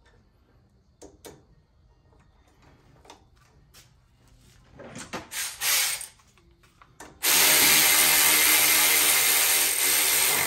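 A few knocks and clinks of brake parts being handled. About seven seconds in, a cordless power tool starts and runs steadily for about three seconds, running a bolt in on the truck's front brake assembly, then cuts off suddenly.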